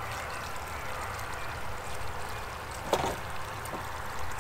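Water pouring from a watering can onto the soil at the base of tomato plants: a steady splashing hiss over a low rumble, with a single knock about three seconds in.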